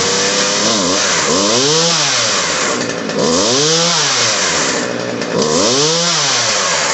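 Poulan 2550 Woodmaster chainsaw's two-stroke engine running loudly and revved up and back down three times, about two seconds apart, staying running. Its high-speed mixture screw has just been turned a quarter turn counterclockwise to cure it bogging and dying when the throttle is hit.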